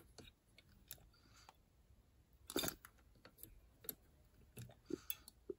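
Faint, scattered clicks and small metallic clacks from a Nikki four-barrel carburettor's throttle linkage and throttle plates being worked by hand, the loudest about two and a half seconds in.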